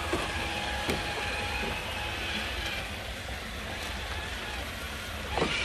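Electric motors and gears of radio-controlled scale crawler trucks whining faintly as they drive, with a couple of light knocks and a louder knock near the end.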